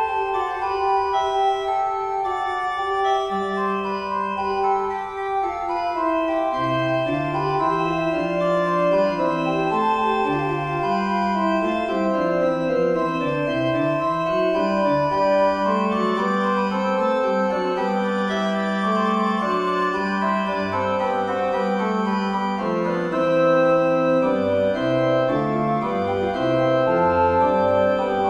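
A four-voice fugue played in an organ sound by notation-software playback. Lower voices join the counterpoint one after another, a deeper part about three seconds in and a still deeper one about six and a half seconds in.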